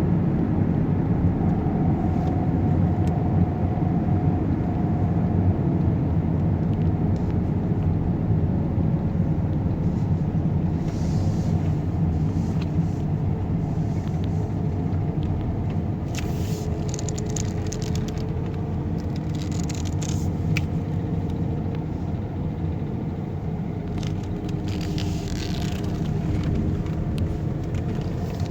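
Steady low rumble of motor vehicles, with faint engine tones slowly rising and falling.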